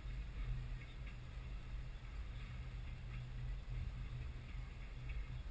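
Freight train of boxcars rolling past: a steady low rumble with faint, scattered clicking of wheels on the rails.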